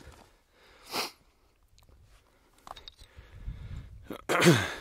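A man's breath sounds: a short sniff about a second in, then near the end a loud, brief voiced exhale that falls in pitch.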